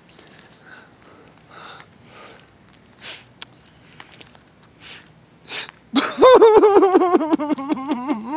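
A few faint sniffs, then about six seconds in a man's loud, high wordless vocal sound whose pitch shakes rapidly and slides downward.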